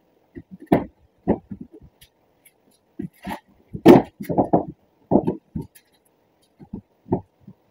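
Plastic headlight housing knocking and clunking against the truck's front end as it is worked into its mounting. An irregular series of short knocks, with the loudest about four seconds in.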